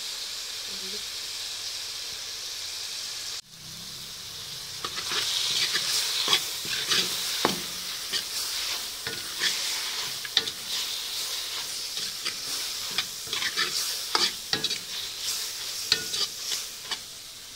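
Chicken, onions and red chilli paste sizzling in an iron kadai: a steady frying hiss at first, then, after a brief dropout, a steel ladle scraping and clacking against the pan many times as it stirs.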